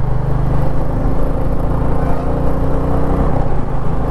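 Motorcycle engine running steadily at a cruising speed of about 80 km/h, with wind rushing over the helmet-mounted microphone.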